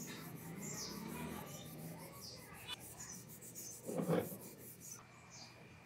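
Rubbing and handling of a steel hammer head being fitted on its wooden handle, with a short clunk about four seconds in. Small birds chirp in the background.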